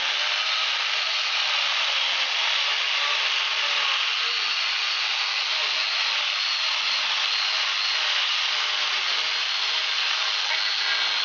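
Electric angle grinder fitted with an 11.5-inch chainsaw bar and chain, running steadily as it rips along a thick wooden beam. The motor's thin whine sits over the rasp of the chain chewing through the wood.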